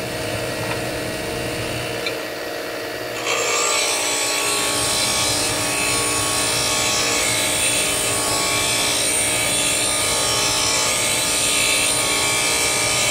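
DeWalt DW758 bench grinder running with its wheel spinning free. About three seconds in, a square steel lathe tool bit is pressed against the grinding wheel, and a steady, even grinding hiss holds over the motor hum as the bit's relief angle is ground.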